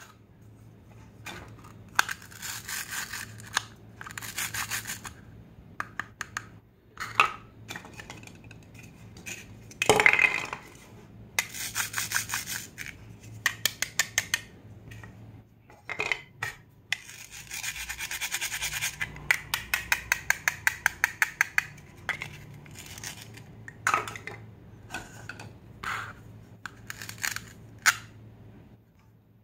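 Plastic toy fruits and vegetables handled and pulled apart at their hook-and-loop joins: bouts of ripping rasps made of rapid clicks, between separate knocks of hard plastic.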